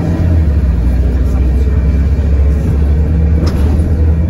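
Bus engine and road rumble heard from inside the passenger cabin while the bus is moving: a steady low drone, with a brief click about three and a half seconds in.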